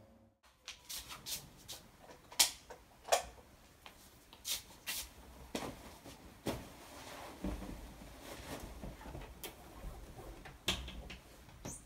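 Scattered clicks and knocks of clothes hangers and hanging clothes being handled on a rail, with the sharpest clacks a couple of seconds in.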